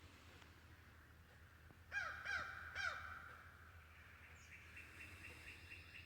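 A bird calls three times in quick succession about two seconds in, followed by a faint, rapid run of chirps, over a low steady hum.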